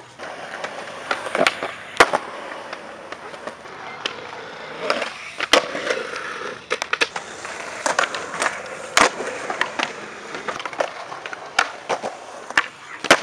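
Skateboard wheels rolling on smooth concrete, broken by many sharp wooden clacks and slaps of the board hitting the ground.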